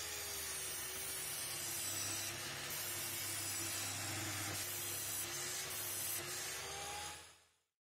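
Table saw cutting through a pine board: a steady hiss of the blade in the wood over the motor's hum. The motor note dips slightly while the board is being cut and comes back up, and the sound stops abruptly near the end.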